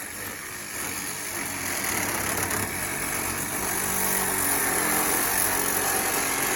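Battery-powered saw cutting through a scooter's rear shock absorber. The motor runs steadily under load and gets louder about a second in. Its blades are worn, with their teeth almost gone.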